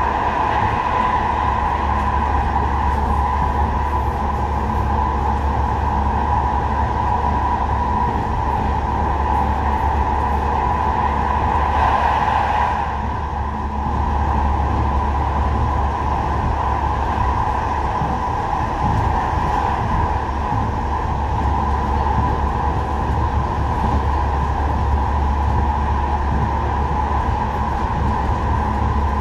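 Manchester Metrolink M5000 tram running along the line, heard from inside the passenger saloon: a steady low rumble of wheels on rail with a constant mid-pitched hum. The noise brightens briefly about twelve seconds in.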